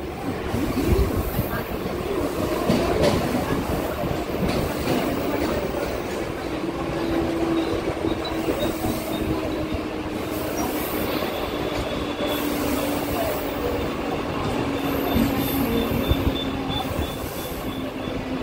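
Mumbai suburban local electric train running, a steady rumble with a low whine that slowly falls in pitch through the second half.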